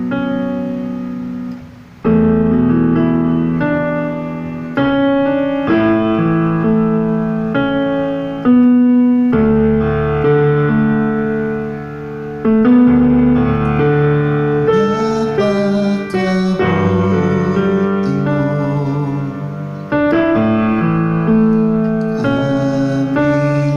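Electronic keyboard played with a piano sound: slow chords struck every one to two seconds, each left to ring and fade before the next.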